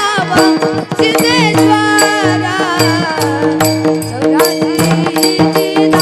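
Boy singing a Marathi Varkari bhajan in an ornamented, wavering melodic line over a steady held drone, with regular hand-drum strokes keeping the beat.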